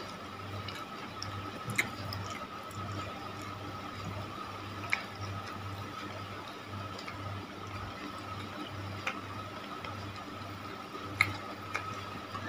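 Eating sounds: chewing on chewy cilor and macaroni, with a few sharp clicks of a spoon against a plate. Behind it runs a steady faint high tone and a low hum that pulses about twice a second.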